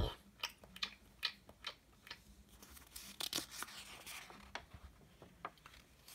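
A paper picture-book page being handled and turned: faint rustling with scattered small clicks and ticks.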